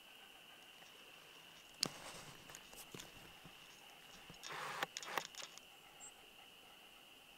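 Steady high-pitched chorus of spring peepers, with a few sharp knocks and a brief rustle in the middle.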